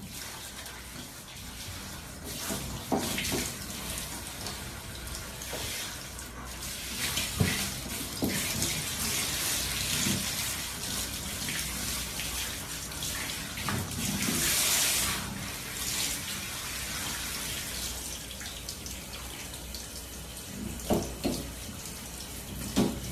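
Water running from a handheld shower head onto a dog's coat and the shower floor: a steady hiss, louder for a spell about halfway through.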